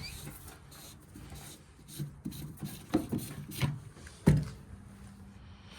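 Riding mower's fuel cap being opened and handled while the gas tank is checked: a few scattered clicks and knocks, the sharpest about four seconds in.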